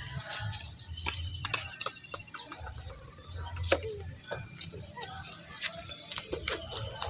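Outdoor ambience: wind gusting on the microphone, with many short sharp clicks and taps and a few brief chirps. The loudest is a single sharp sound about three and a half seconds in.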